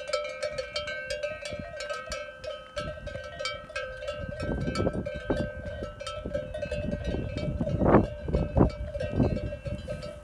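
Cowbells on a walking cattle herd clanking and ringing together as the cows move. In the second half, heavier low thumps and rumbling come in; the loudest is about eight seconds in.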